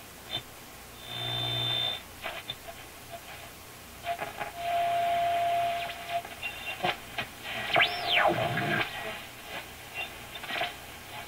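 Marconi 201A tube radio being tuned across a shortwave band, heard through its speaker: crackle and short snatches of stations. A steady whistle is held for a couple of seconds around the middle, and about eight seconds in a whistle sweeps up and back down as the dial passes a station.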